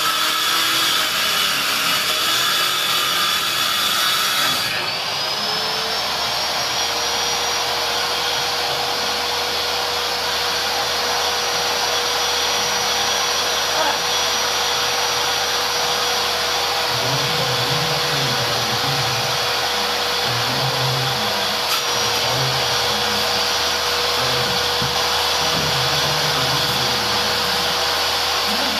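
Table saw cutting through a large sheet of board for the first few seconds; about five seconds in the load comes off, and the blade runs free with a steady whine that rises briefly in pitch and then holds.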